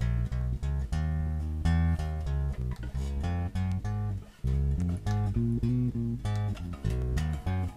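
Harley Benton PB Shorty short-scale electric bass, with a passive precision pickup, played as a quick run of separately plucked low notes, with a short break about four seconds in.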